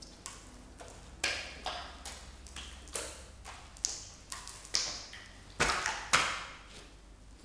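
Three raw hearts being juggled: an irregular run of slaps as they smack into the hands, ending with two louder smacks as hearts fall onto the hard floor.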